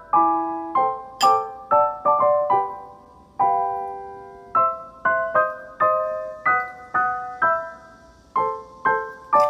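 Background music: a light piano melody of single notes and chords, about two a second, each ringing and fading.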